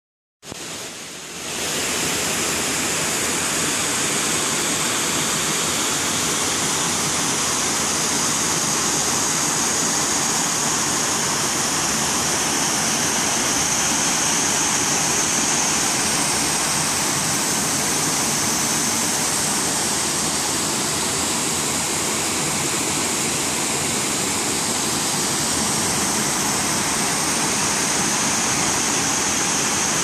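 Water pouring over a low concrete dam spillway: a steady rushing that swells up over the first couple of seconds, then holds.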